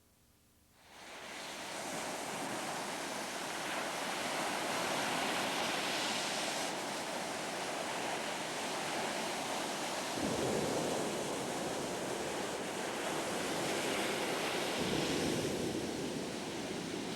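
Ocean surf: a steady wash of breaking waves that fades in about a second in, with waves surging about ten seconds in and again about fifteen seconds in.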